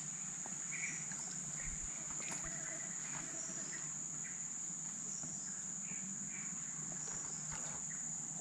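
Steady high-pitched insect chorus, one continuous shrill drone, with a few faint short calls over it.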